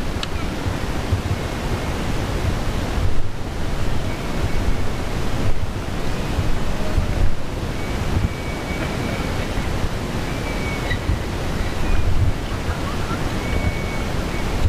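Wind buffeting a GoPro sealed in its waterproof case: a steady, muffled rushing rumble, heaviest in the low end.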